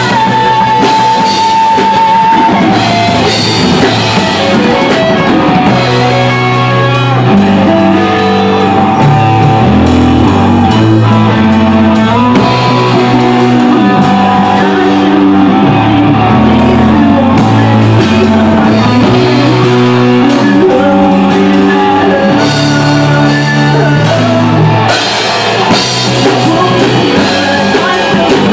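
Live rock band playing loud: electric guitars and drum kit over a moving low line, with a long held high note in the first couple of seconds.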